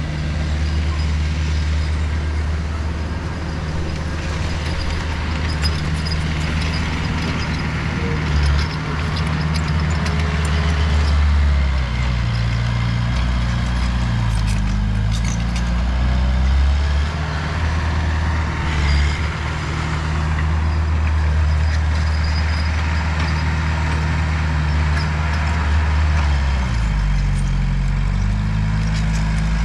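Heavy diesel engine of earthmoving machinery running, a deep steady rumble whose pitch shifts as the load changes, about twelve seconds in and again near the end.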